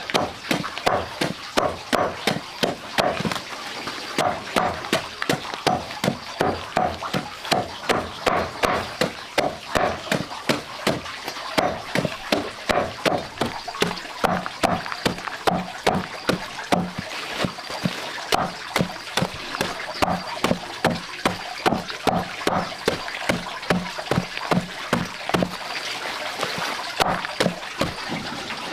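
Large knife chopping a bundle of green leaves and stems on a round wooden chopping block, the blade knocking against the wood in a steady run of about three chops a second.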